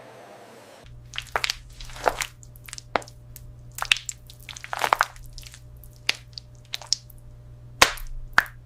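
Irregular crunching and cracking, a dozen or so sharp cracks at uneven spacing, over a steady low hum that starts about a second in.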